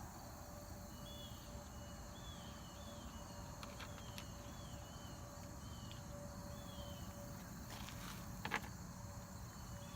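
Outdoor ambience: a steady high insect hiss with a run of short, high chirps repeating for several seconds, a few light clicks, and a brief knock near the end.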